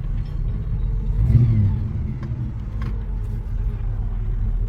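A 1984 VH Holden Commodore's 308 V8 running under way, swelling in revs about a second in, then settling back to a steady run.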